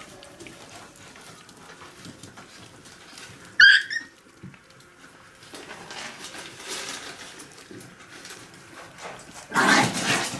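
Miniature pinscher puppies tussling over a whole feeder rat: one short, sharp, high-pitched squeal about three and a half seconds in, then rustling and a loud, harsh, rough burst near the end.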